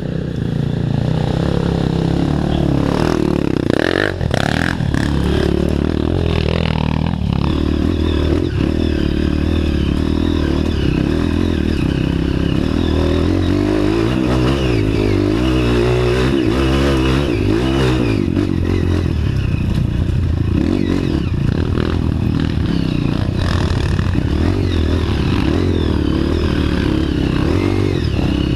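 Off-road trail motorcycle engine running steadily under load, revs rising and falling, with clattering and scraping over rough ground.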